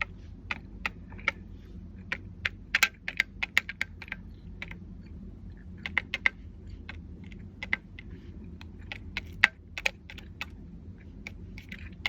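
Small plastic ink bottle tip tapping and clicking against a plastic switch plate as alcohol ink is dabbed on: sharp, irregular clicks, a few a second, like light typing, over a low steady hum.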